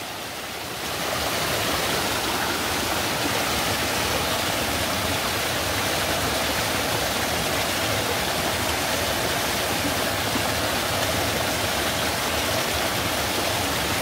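Small waterfall in a mountain stream, water pouring over a rock and log ledge in a steady rush. The stream is running high. The sound grows louder about a second in, then holds steady.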